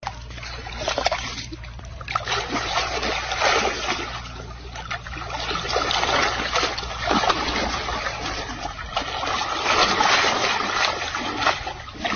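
Water splashing and trickling in irregular bursts that swell and fade.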